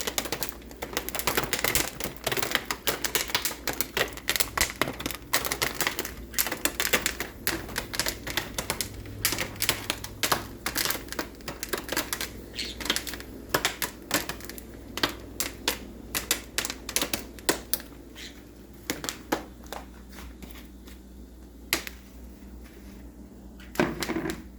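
Popcorn popping: a rapid, dense crackle of pops that thins out over the last several seconds to a few scattered single pops as the batch finishes.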